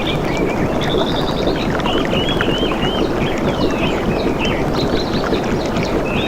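Steady rushing, splashing water with several birds chirping and trilling over it, in short whistled phrases that rise and fall.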